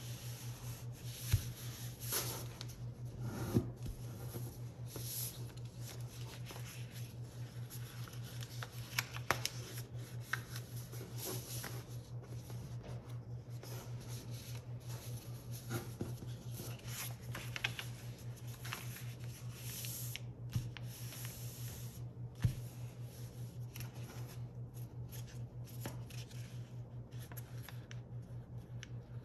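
A sheet of paper being folded into a paper airplane by hand on a tabletop: rustling and sliding as it is handled, with occasional sharp snaps and taps as folds are creased down. A steady low hum runs underneath.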